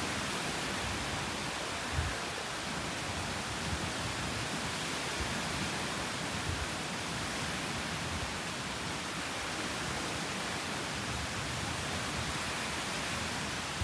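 Steady hiss and wash of surf breaking on a sandy beach, even and unbroken, with a soft low thump about two seconds in.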